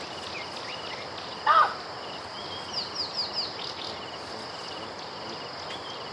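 Natural ambience with a steady insect drone and birds singing. About a second and a half in there is one short, loud call from a baboon close by. Around three seconds in a bird gives a quick run of four falling chirps.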